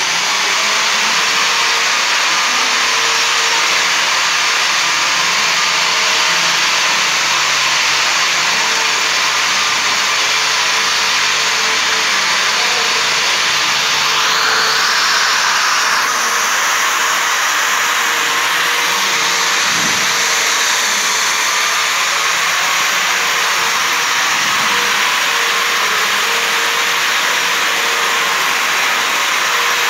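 A long-reach electric wall sander with its dust-extraction hose runs steadily while its pad is pressed to a plastered wall. The sound is an even, loud whoosh over a steady hum, and it becomes brighter and hissier about fourteen seconds in.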